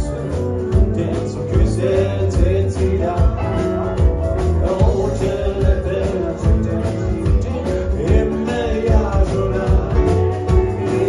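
A live band playing a country/rock-and-roll song with guitar, drums and a singing voice, heard through the room's sound system.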